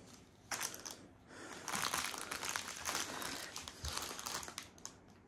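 Clear plastic wrapping crinkling as it is handled. There is a short burst about half a second in, then about three seconds of continuous crinkling.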